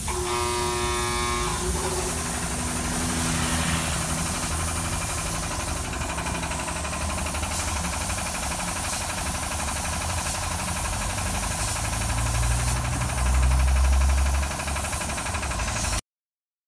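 Gravity-feed air spray gun hissing steadily as it sprays clear coat onto an aluminum wheel rim, over a low engine-like rumble that swells near the end.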